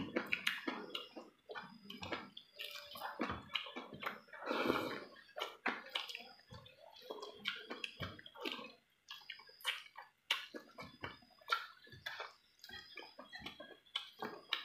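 Close-up mouth sounds of a man eating chicken curry and rice by hand: chewing and lip smacking with irregular short clicks, and fingers mixing rice on the plate near the start.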